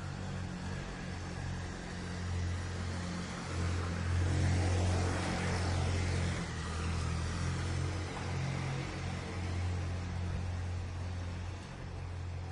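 Garbage truck engine running with a steady low hum on a street. A broad rushing swell rises about four seconds in and fades again by about eight seconds.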